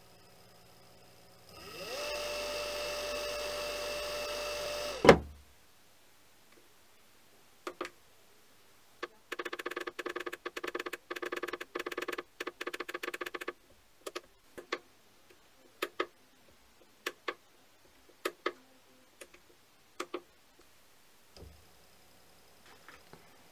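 Brushless servo motor controller beeping as its speed buttons are pressed: a fast run of auto-repeat beeps for about four seconds, then single beeps about half a second to a second apart as the set speed steps down. Before that, a whine rises, holds steady for about three seconds, then cuts off with a loud click.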